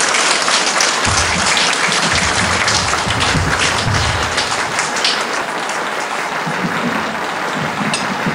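Audience applauding steadily, with low thumps in the first few seconds.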